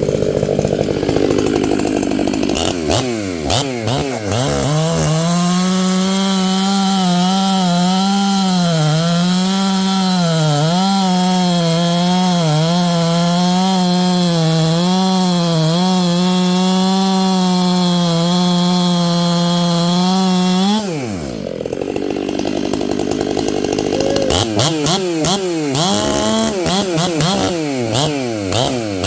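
Chainsaw engine revving up, then held at high revs for about sixteen seconds with a wavering pitch. It drops back to idle, then is blipped up and down several times near the end.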